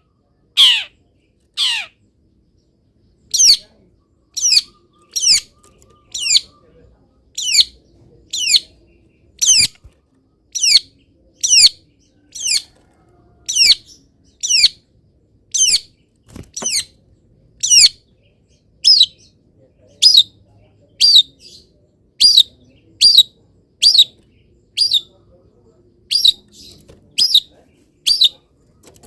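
Long-tailed shrike giving loud, harsh calls over and over, about one a second, each a quick falling sweep, with a short pause about two seconds in.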